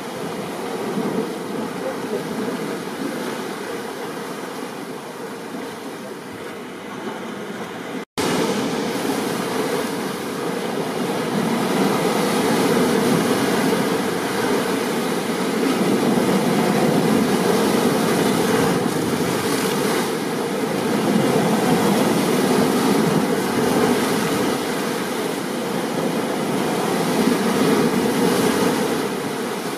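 Continuous rushing noise of a rain and ocean-surf storm ambience, swelling and easing. About eight seconds in it cuts out for an instant, then comes back louder, as at an edit or loop point.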